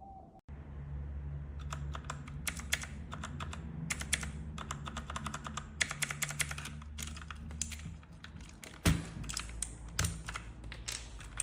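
Typing on a mechanical keyboard fitted with Outemu switches: a fast, irregular run of key clicks and clacks, with one louder knock about nine seconds in. A steady low hum runs underneath.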